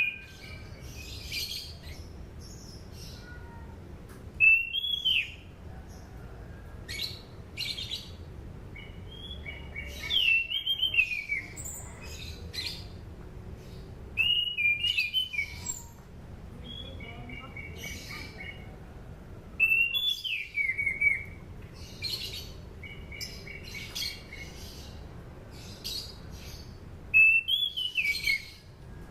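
Anis cendana thrush singing: a series of short song phrases a few seconds apart, each opening with a clear slurred whistle that rises and falls, then running into a quick jumble of higher notes.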